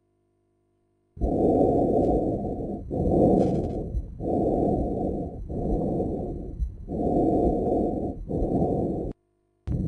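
Lung breath sounds recorded through a stethoscope: three breaths in and out, each a muffled rushing noise with no high sound in it, following one another about a second to a second and a half apart.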